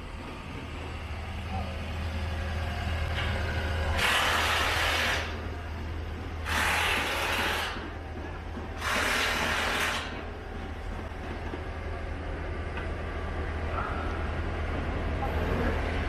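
Three bursts of hissing air, each about a second long, over a steady low rumble that slowly grows louder.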